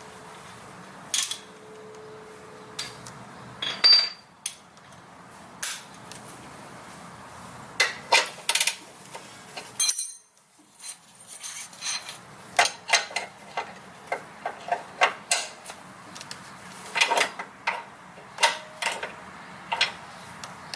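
Metal hand tools and parts clinking and knocking during suspension work: irregular sharp clicks and taps, the loudest about four seconds in and again near ten seconds.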